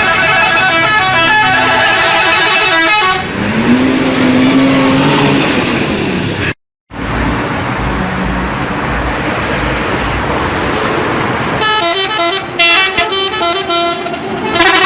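Multi-tone 'telolet' bus horns playing quick stepped tunes, for about three seconds at the start and again from about twelve seconds in. Between them is a lower tone that rises and falls, then steady road and engine noise, broken by a brief silent gap partway through.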